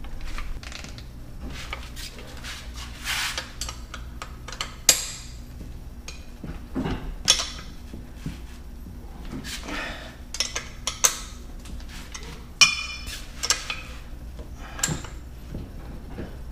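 Irregular metallic clinks and knocks as the outboard's lower unit gearcase is fitted up against the midsection and its mounting bolts are started by hand, with a handful of sharper metal-on-metal taps among them.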